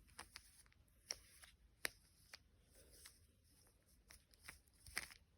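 Rubik's cube layers being turned by hand through a last-layer algorithm: faint, irregular plastic clicks, about a dozen, with louder ones about two seconds in and near the end.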